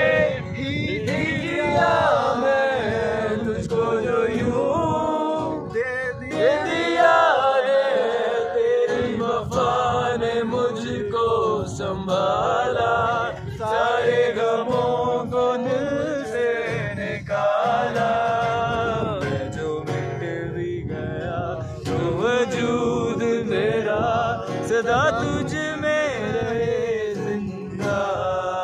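Two men singing a song together to a strummed acoustic guitar played by one of them.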